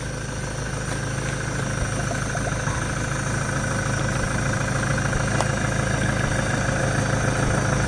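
Vehicle engine running steadily at low revs as it creeps forward, growing slowly louder.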